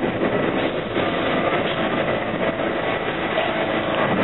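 R68A subway train pulling into the station and slowing down, its steel wheels running on the rails with a steady noise.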